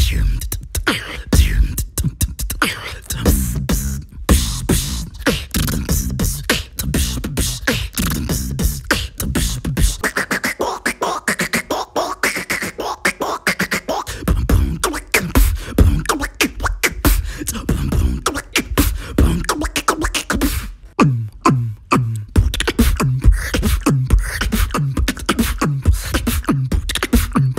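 Beatboxing: one performer's mouth-made beat of rapid clicks and snare-like hits over deep vocal bass sounds. A stretch of pitched, humming synth-like tones comes about a third of the way in, and an even pulsing bass rhythm takes over in the last few seconds.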